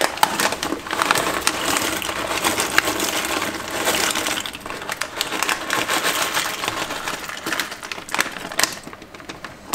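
Dry pasta rattling and pattering out of its crinkling plastic bag into a cooking pot: a long, dense run of small crackles and clicks that eases off near the end.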